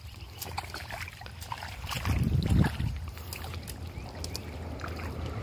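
Steady low hum of an engine-driven water pump, with water running from its blue outlet pipe onto the mud. Wet squelches and splashes of mud being worked by hand are scattered through, loudest about two seconds in.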